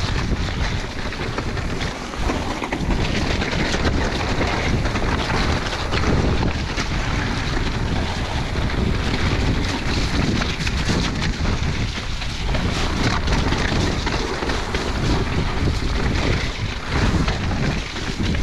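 Wind rumbling over a helmet or bike camera's microphone during a mountain bike descent of a wet trail, with constant tyre noise and frequent knocks and rattles of the bike over rough ground.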